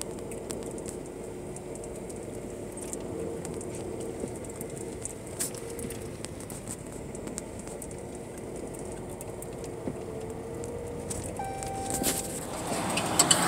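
Vehicle cabin noise while driving slowly on a dirt road: a steady engine and tyre drone with small scattered clicks and rattles.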